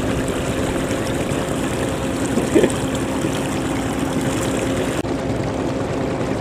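Floodwater rushing through a breach in a rice-paddy dike, under the steady drone of a farm tractor's engine. The hiss of the water drops off suddenly about five seconds in, leaving the engine drone.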